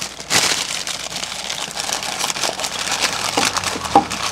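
Paper gift wrapping rustling and crinkling as a present is unwrapped, with a sharp little click about four seconds in.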